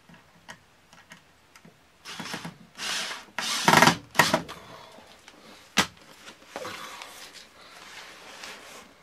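A screw being driven in by hand: irregular scraping and rasping bursts, loudest about four seconds in, with small clicks of handling and a sharp click near six seconds.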